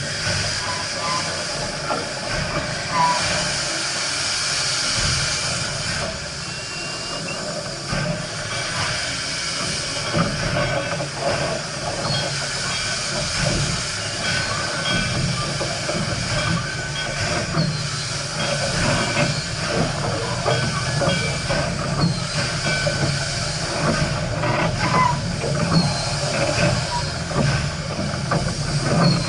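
Steam locomotive hissing steam steadily, with scattered metallic knocks and clanks.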